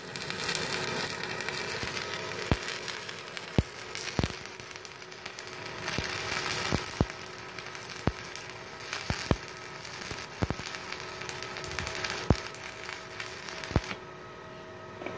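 Stick-welding arc from a Multipro EG 200A-SC IGBT DC inverter welder: a steady crackling hiss with sharp pops as the electrode burns along the steel. It cuts off suddenly near the end as the rod is pulled away and the arc breaks.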